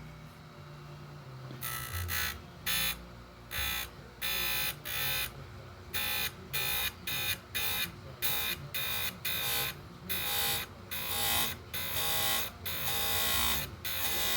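Oregon 410-120 bench chain grinder sharpening a chainsaw chain: the motor hums, then from about a second and a half in the wheel grinds the cutter teeth in about twenty short, harsh passes, one tooth after another, with the hum between them.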